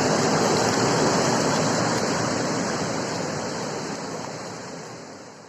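Floodwater of a swollen river rushing past in a steady, dense noise, fading out over the last two seconds or so.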